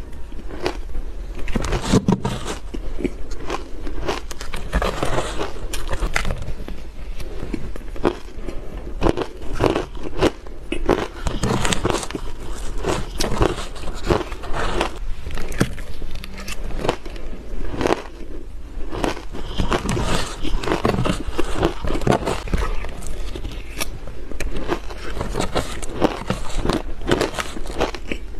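Close-miked crunching and chewing of mouthfuls of soft, powdery dyed shaved ice, a dense, irregular run of small crunches, with a metal spoon now and then scooping ice in a plastic bowl.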